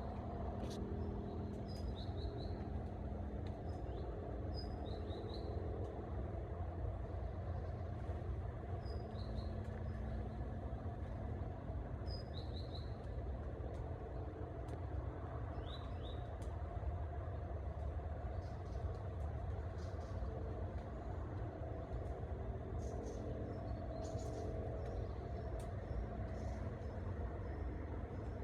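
Forest ambience: a steady low rumble throughout, with a small bird giving short high chirps in quick little runs every couple of seconds, mostly in the first half.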